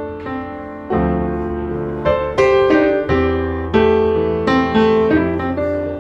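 Background piano music: a slow melody of struck notes over a held bass.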